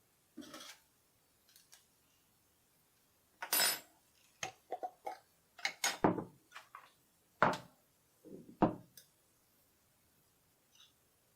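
Dishes and cutlery being handled: a string of separate short knocks and clinks, some in quick succession, spread over most of the stretch.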